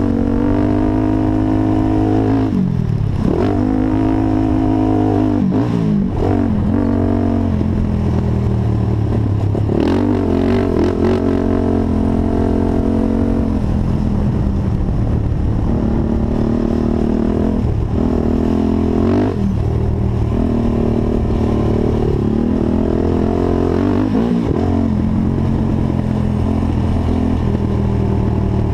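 Honda TRX450 quad's single-cylinder four-stroke engine under hard riding, its pitch climbing and falling again and again as the throttle is opened and closed, with a few brief drops off the throttle.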